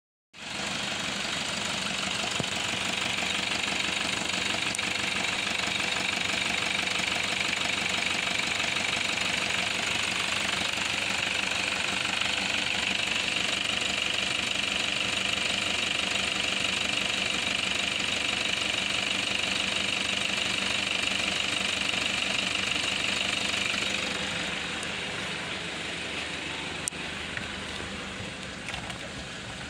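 Toyota Prado 120's 3.0-litre four-cylinder turbo diesel idling steadily, heard close over the open engine bay. From about 24 seconds in it is quieter and heard from inside the cab, with a couple of faint clicks near the end.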